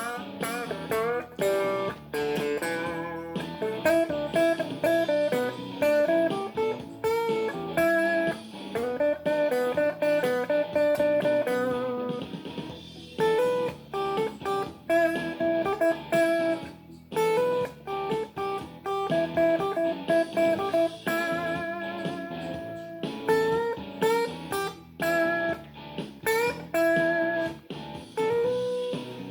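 Blues played on guitar: picked single-note lines and chords, with some notes bent and wavering in pitch.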